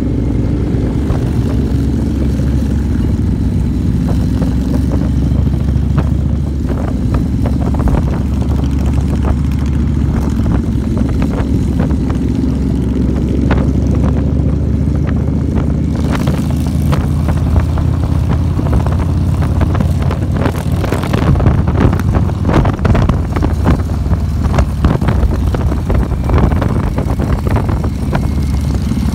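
Motorcycle engine running steadily while riding, with wind buffeting the microphone; the wind noise gets heavier in the second half.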